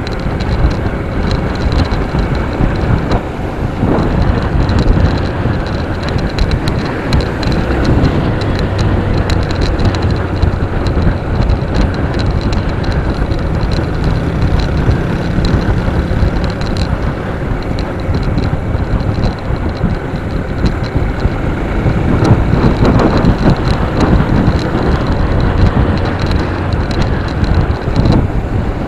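Motorcycle engine running steadily at cruising speed, with wind noise on the microphone and road rumble.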